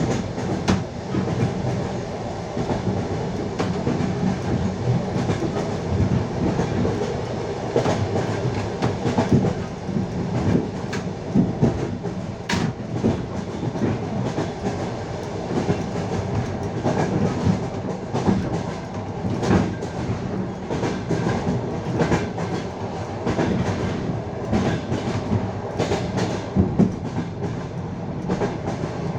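Passenger train running at speed, its wheels knocking over the rail joints with the clickety-clack of wheel sets passing each joint over a steady rumble of the carriages.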